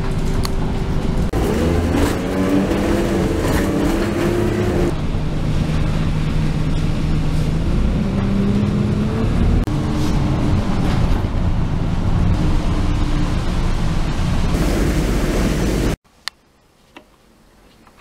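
Bus engine and transmission running under way, heard from inside the passenger cabin; the whine climbs slowly as the bus pulls away and drops suddenly at each gear change. Near the end it cuts off abruptly to a quiet room with a faint click.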